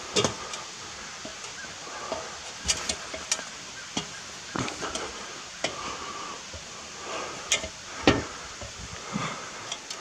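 Climbing an aluminium extension ladder: irregular knocks and clanks of feet and hands on the rungs and rails, the loudest just after the start and about eight seconds in.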